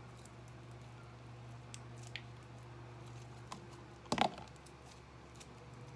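Sticky homemade glue slime being kneaded and stretched in the hands, giving small, faint squelches and clicks. About four seconds in there is one brief, louder clunk as the plastic mixing tub is handled.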